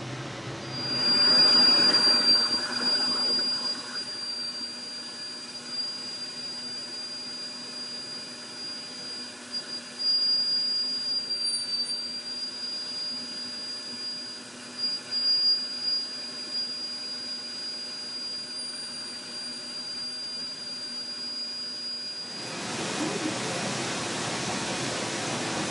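High-speed dental handpiece whining steadily at a high pitch as its bur trims the teeth of a stone dental model, preparing them for veneers; the pitch dips briefly now and then as the bur bites. It stops shortly before the end, leaving a steady hiss.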